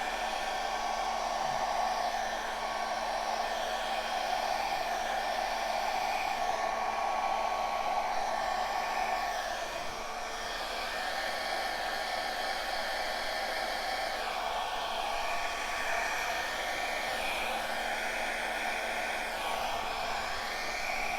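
Handheld blow dryer running steadily, its loudness swelling and dipping a little, with a faint steady hum under the rush of air. It is blowing out wet poured acrylic paint on a canvas to spread it into cells and lacing.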